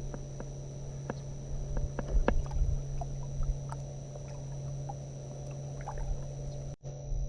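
Sounds of a fishing boat on the water: a steady low hum with scattered light ticks and knocks over a low rumble. The sound cuts out for an instant near the end.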